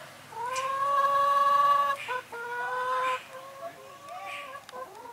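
An animal's drawn-out, high call, rising at its start and held for about a second and a half. A shorter call follows, then fainter, wavering cries.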